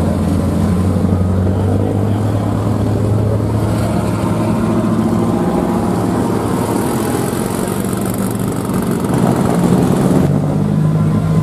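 Engines of off-road race vehicles running at low speed as they roll slowly past one after another: a trophy truck, then a lifted pickup and a race UTV. The deep steady engine note changes partway through as a different vehicle comes by, and it grows a little louder near the end.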